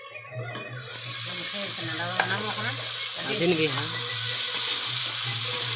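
Chicken pieces frying in a hot kadai, stirred with a spatula: a steady sizzle that comes up over the first second or so and then holds.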